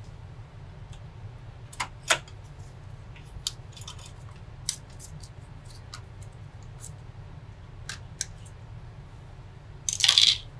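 Scattered light clicks and clinks of metal and plastic as a Corsair H60 liquid cooler's pump head and its metal mounting bracket are handled and fitted onto the CPU. Near the end comes one louder half-second scrape and rattle, over a steady low hum.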